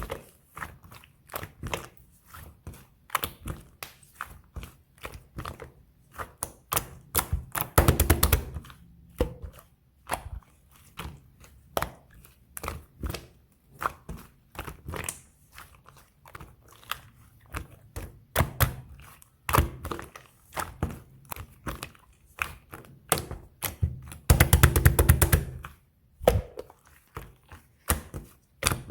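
Sky-blue fluffy slime being squished and pressed by hand: a steady run of soft clicks and little pops from trapped air, with two bursts of rapid crackling, one about eight seconds in and one near the end.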